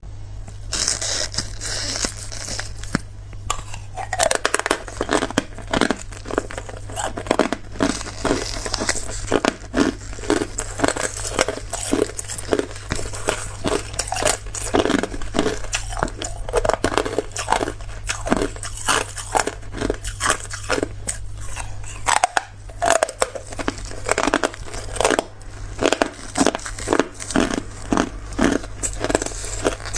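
Hard clear ice being bitten and chewed close to the microphone: a brief rustle at the start, then a steady run of loud crunches, about two a second. A steady low hum runs underneath.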